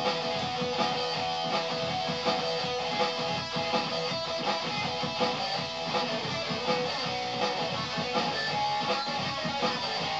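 Stratocaster-style electric guitar being strummed in a steady rhythm, with accented strokes about every three-quarters of a second over ringing chords.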